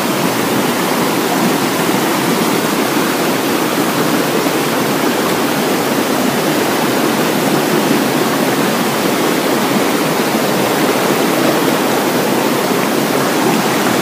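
Steady rush of a rocky forest stream cascading over boulders below a waterfall, an even, unbroken sound of fast water with no rise or fall.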